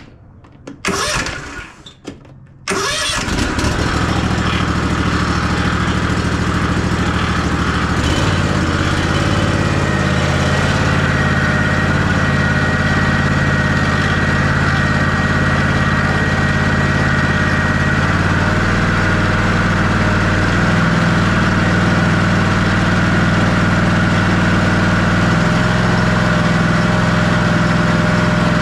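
Kawasaki FR691V V-twin engine on a zero-turn mower, turned over briefly by its electric starter, catching within about three seconds and then running steadily; its note shifts slightly about eight seconds in. It is the engine's first run after an oil change, to circulate the fresh oil.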